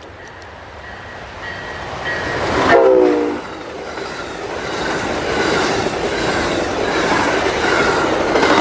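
Amtrak passenger train led by a Siemens ALC-42 Charger locomotive, approaching and passing at speed. The locomotive's horn gives a short blast about three seconds in. After that comes a growing rush of wheels on the rails, with quick clicks over the rail joints as the cars go by.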